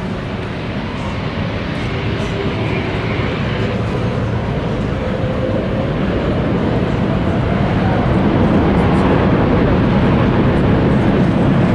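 Jet airliner's engines, a steady noise that grows gradually louder as the aircraft approaches, with voices chattering underneath.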